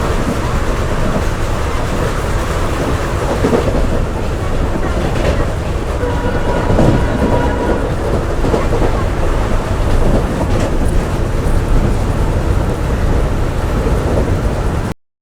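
Passenger train running on the rails, heard from on board: a steady, loud rumble of wheels and track. The sound cuts off suddenly just before the end.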